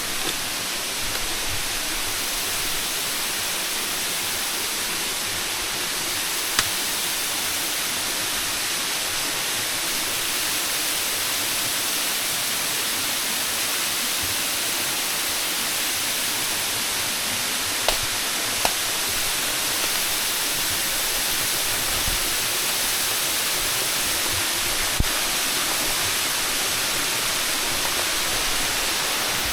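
Waterfall's steady rushing roar of falling water, with a few brief sharp clicks over it.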